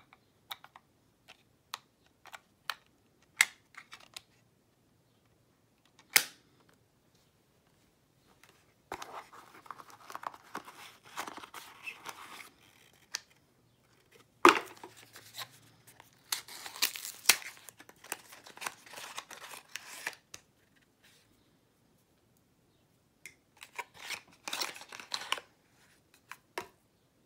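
Unboxing handling: a string of small plastic clicks from the earbud charging case in the first few seconds, then stretches of cardboard boxes and packaging scraping and rustling. A sharp knock comes about halfway through.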